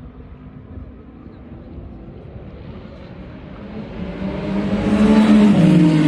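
Ferrari 499P Le Mans hypercar's twin-turbo V6 approaching at racing speed, growing from a distant hum into a loud engine note over the last two seconds as it nears.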